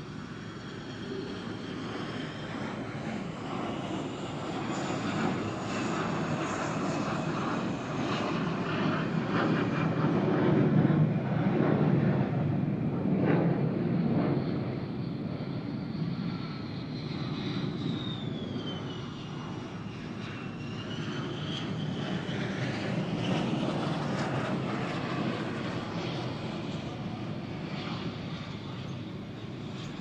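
Military fixed-wing aircraft flying by low, its engine noise building to a peak about eleven seconds in and then fading away, with a high whine that falls in pitch as it approaches.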